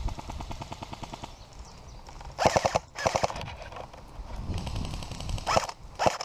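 Airsoft gun firing a full-auto burst, a rapid, even rattle of shots lasting a little over a second. After it come several louder, short bursts of noise.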